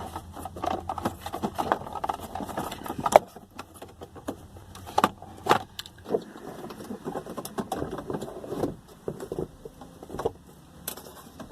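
Scattered clicks, knocks and rattles of hard plastic as a BMW E46 instrument cluster is worked loose and pulled out of the dashboard. A low hum stops about three seconds in.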